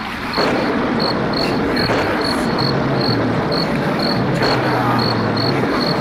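Night-ambience sound effect of crickets chirping, about three chirps a second, over a steady rushing hiss and a low drone.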